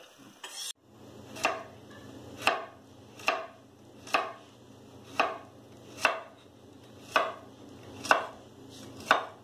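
Kitchen knife chopping vegetables on a wooden cutting board: nine steady chops about one a second, starting about a second in.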